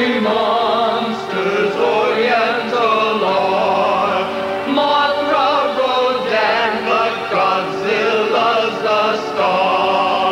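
Choir singing a Christmas-carol-style song over instrumental backing, with held, wavering notes.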